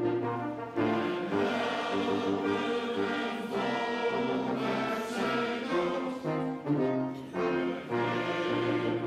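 Men's choir singing a march song, accompanied by a brass quintet.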